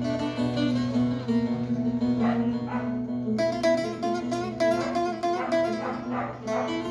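Two bağlamas, long-necked Turkish lutes of different sizes, played together: quick plucked and strummed notes over a steady, ringing low drone.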